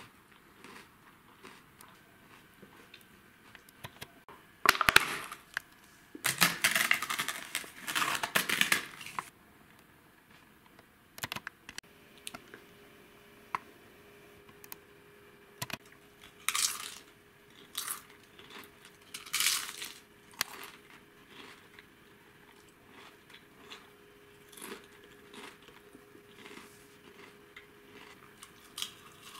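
A snack packet being handled and rustled, loudest for a few seconds near the start, then crunchy snacks being bitten and chewed in short separate crunches.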